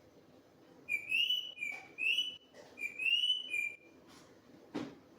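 Pet parrot whistling a phrase of about three rising-and-falling notes, each followed by a shorter lower note. A single sharp click comes near the end.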